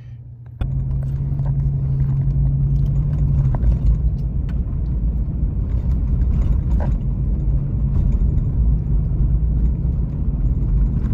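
A pickup truck driving along a frozen ice road, heard from inside the cab: a steady low rumble of engine and tyres that starts abruptly about half a second in, with a few light knocks.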